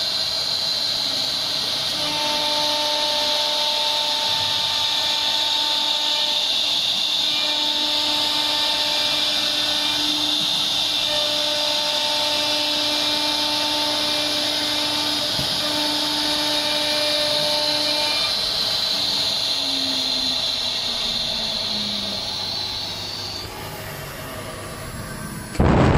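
CNC router spindle whining steadily as it carves a wood panel, with lower motor tones starting and stopping as the cutting head moves across the board. The whine cuts off a little before the end, followed by a brief loud burst.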